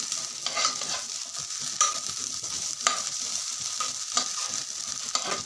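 Soaked, drained rice grains sizzling in a little ghee in a nonstick kadhai while being stirred around the pan, with a scraping stroke about once a second. The rice is being lightly roasted so its moisture cooks off.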